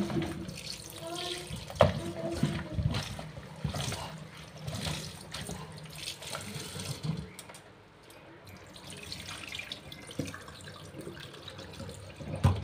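Tap water running into a plastic basin while hands swish and rub spinach leaves and sliced carrots in the water, with knocks against the basin. Near the end the basin is tipped and the water pours out into the sink drain.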